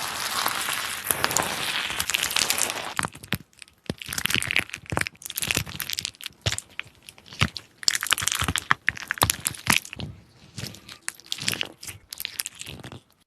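Slime being squeezed and pressed by hand, giving dense bursts of crackling and crunching clicks that come in irregular clusters and stop suddenly near the end.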